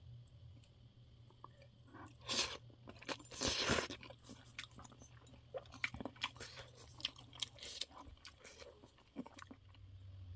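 A person eating spicy noodles with chicken feet: two noisy slurps about two and three seconds in, then close-up chewing with many short wet clicks that die away near the end.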